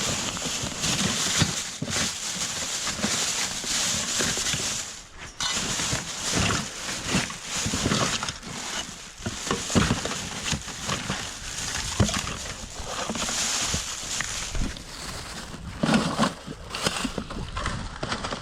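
Scrap and junk being handled and gathered up: irregular rustling, crinkling and clattering knocks, with a steady hiss behind them.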